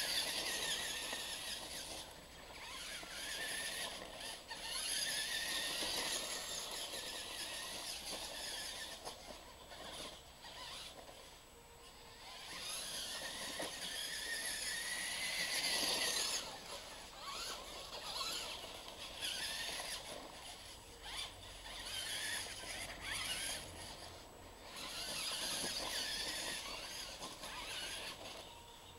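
Radio-controlled monster trucks' motors and gears whining, the pitch rising and falling as the trucks speed up and slow down, in swells of a few seconds each.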